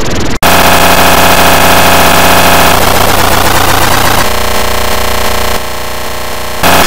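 Very loud, harshly distorted cartoon audio from an audio-effects edit: a dense, clipped noise with a buzzing stack of tones. It cuts out for an instant about half a second in, changes texture twice, and drops somewhat in level near the end before coming back up.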